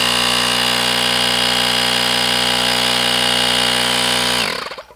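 Parkside PAK 20-Li cordless compressor's motor and pump running steadily with a high whine, switched on with the button pressed hard; about four and a half seconds in it is switched off and winds down, falling in pitch.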